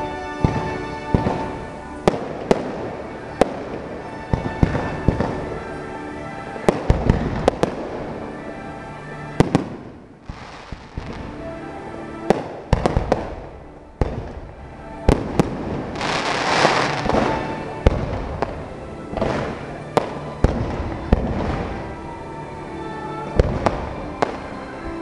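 Aerial fireworks going off in quick, irregular succession, sharp bangs and pops, with a stretch of dense crackling about sixteen seconds in. Music plays steadily underneath.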